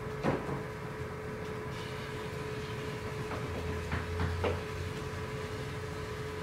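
Room tone with a steady thin hum and low rumble, broken by a few small knocks and clicks: the sharpest about a quarter second in, then a cluster between three and four and a half seconds in.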